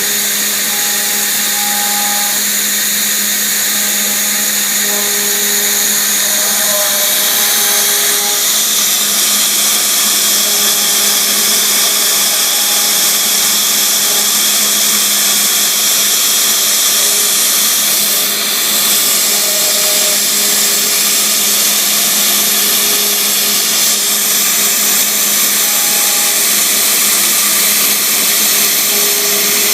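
Small homebuilt CNC router carving a rubber hockey puck: the spindle runs steadily with a high hiss of cutting, while short whining tones from the stepper motors start and stop every second or two as the axes move. The level dips briefly once, past the middle.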